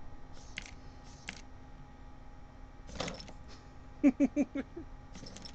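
Cat batting rubber toy spiders around on a plastic tray: light scattered rustles and a scrape about three seconds in. Then a quick burst of laughter, about five short pulses, which is the loudest sound.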